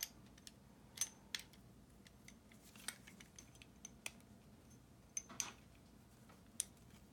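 Faint, scattered small metallic clicks and taps, about six over several seconds, as a coax F-connector is seated in the jaws of a hand compression tool.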